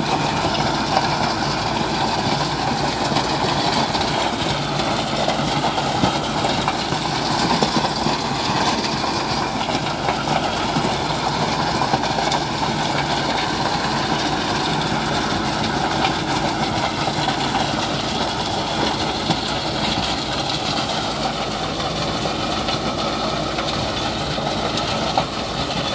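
Kubota MU5502 tractor's diesel engine running steadily under load while it drives a 42-blade Maschio rotavator through the soil, the spinning tiller blades churning the earth.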